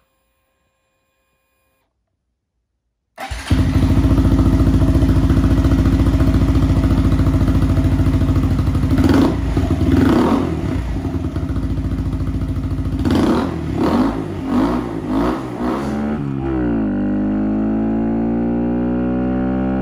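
About three seconds of near silence, then a Honda Monkey's air-cooled single-cylinder engine, fitted with an upgraded cam and ECU flash, running at idle and revved up several times between about nine and sixteen seconds in. It then goes to a steadier note, the bike running along the road with the engine pitch slowly rising as it accelerates.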